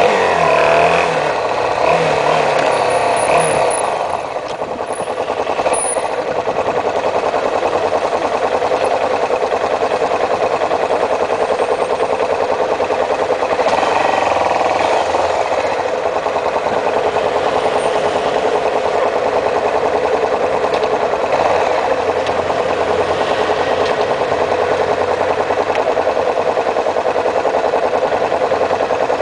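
Motorcycle engine running steadily close to the microphone, a fast even pulsing, with street traffic around it.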